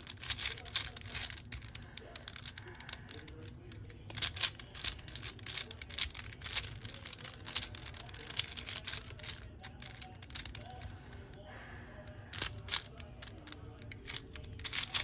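A plastic 4x4 puzzle cube being turned fast by hand: an irregular run of quick clicks and clacks as its layers snap round, some turns in quick bursts.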